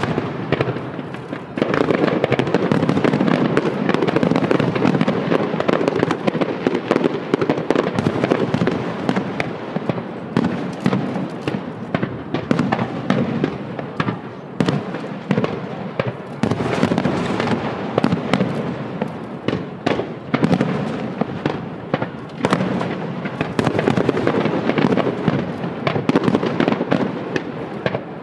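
Aerial fireworks display: a dense, continuous barrage of shell bursts, with many sharp bangs overlapping and crackling between them.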